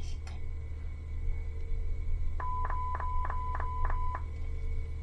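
Bluetooth speaker beeping: a quick run of about seven electronic beeps, roughly four a second, over a steady tone, as its volume-up button is held. A low steady hum sits underneath.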